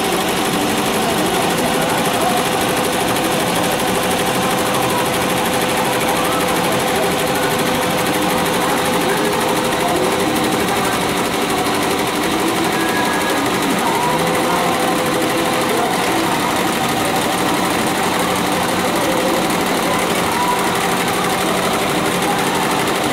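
Tajima multi-needle embroidery machine stitching lettering onto a cap on its cap frame, running steadily at about 740 rpm with a continuous rapid needle clatter.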